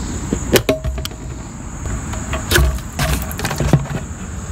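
Scattered metallic clicks and knocks of needle-nose pliers working a hose clamp and rubber fuel line loose on a small engine, busiest in the second half. A steady high insect buzz runs underneath.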